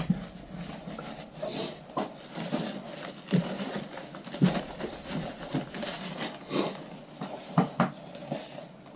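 Scattered light taps and knocks with rustling as excess epoxy is wiped off a freshly glued golf iron head and shaft.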